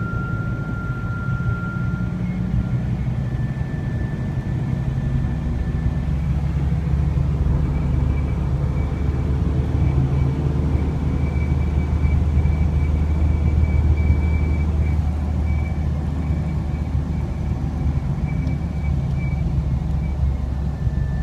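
A vehicle-mounted LED light bar whistling in the airflow while driving, a thin steady whistle over low road and engine rumble. The whistle steps up in pitch twice in the first several seconds, holds, and drops back near the end.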